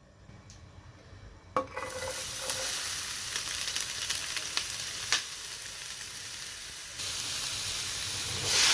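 Chopped onion and garlic sizzling in hot olive oil in a pan. The sizzle sets in about two seconds in, with a few clicks of a stirring utensil, and grows louder near the end.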